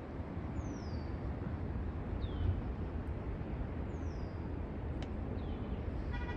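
A songbird calling outdoors: short falling whistles, about four of them, one every second and a half or so. Under them runs a steady low rush of wind and ambient noise.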